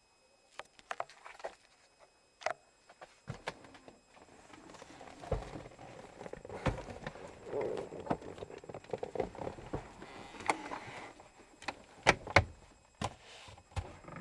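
Camera handling noise: rustling and scattered sharp clicks and knocks, with a denser stretch of rubbing from about four to eleven seconds in, as a hand brushes over the camera.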